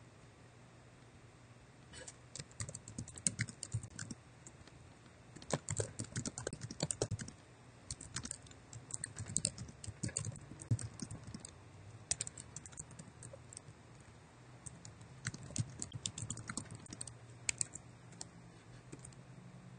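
Typing on a computer keyboard in several bursts of quick key clicks, with short pauses between them.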